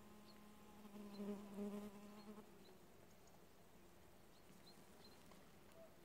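A flying insect buzzing steadily, growing louder about a second in and then fading out a little after two seconds in.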